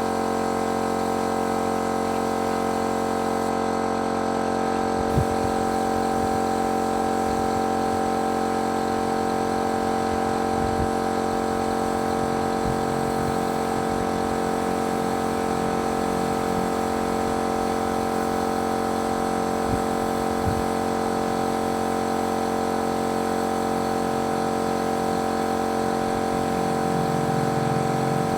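Motor-driven paint-spraying machine running steadily with an even, pitched hum and hiss, with a few faint knocks.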